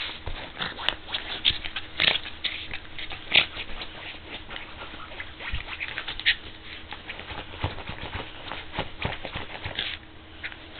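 West Highland white terrier scratching and rooting in the bedding: a fast, irregular run of scratchy fabric rustles that thins out near the end.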